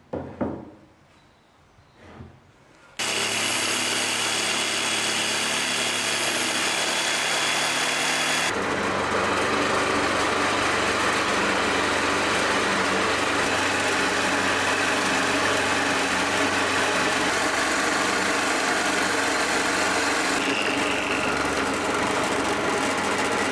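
Two light knocks, then a power tool switches on about three seconds in and runs steadily with a high whine. A few seconds later its sound turns rougher and noisier and stays that way.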